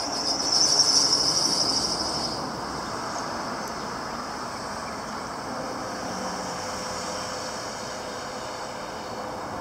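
Steady city traffic noise, with a high-pitched squeal that is loudest about a second in and fades out by about two and a half seconds.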